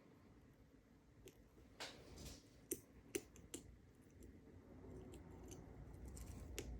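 Faint, scattered small clicks of a lock pick and tension wrench working the pins inside a 6-pin Union padlock, over soft handling noise; the two sharpest clicks come a little under three seconds in and just after.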